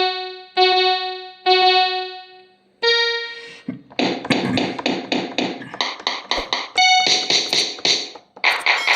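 Trinity PA-41X mini electronic keyboard playing a piano-like tone: three single notes that each ring and fade, then from about four seconds in a run of quick notes, with a brighter tone coming in near the end.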